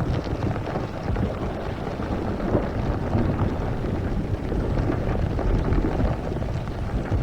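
Sound-designed volcano eruption effect: a continuous deep rumble with a dense crackle over it, holding at a steady level.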